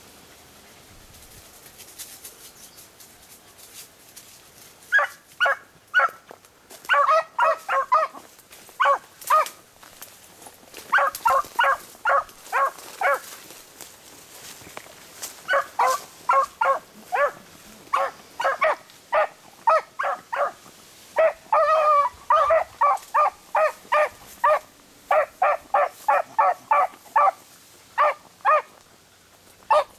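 Beagles baying on a rabbit's trail: short, sharp barks in quick runs of several a second, starting about five seconds in and going on in bursts with short pauses.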